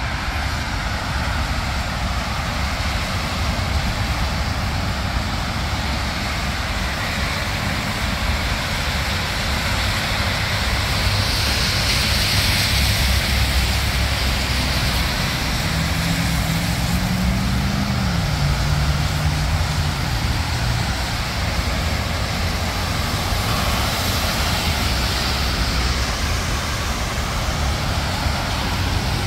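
City street traffic on rain-wet roads: a steady wash of tyre and engine noise. A vehicle hisses past about twelve seconds in, and a heavier engine hum rises and falls just after it.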